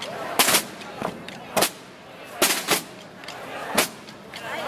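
Semana Santa procession drums, a rope-tensioned bass drum played with a soft-headed mallet among them, struck in loud, sharp beats at uneven intervals, about seven in under five seconds. Crowd voices murmur between the beats.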